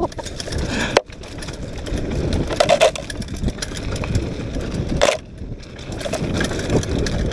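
Mountain bike rolling fast downhill: tyre noise over loose dirt and dry leaves and the bike rattling, with sharp knocks about a second in and again about five seconds in.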